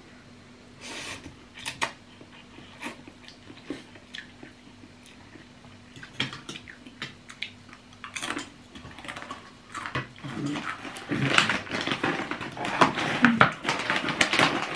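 People eating noodle soup: chewing, with forks and spoons clicking against bowls now and then. From about ten seconds in, a plastic snack bag crinkles loudly as it is handled.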